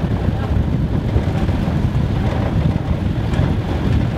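Wind buffeting the microphone over the steady rumble of an open-sided safari vehicle driving along a dirt track.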